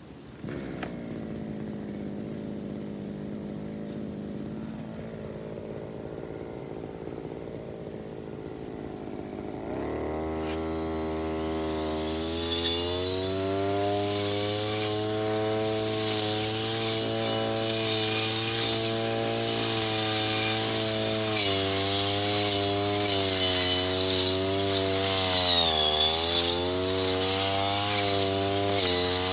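Brush cutter's small engine catching and settling to idle, then revved up about ten seconds in and held at high speed, with a loud hiss as it cuts grass. The engine pitch sags briefly once near the end.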